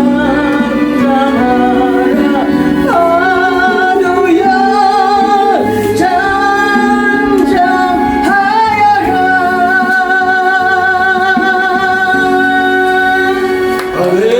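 A woman singing a gospel song over instrumental accompaniment, ending on one long held note with vibrato.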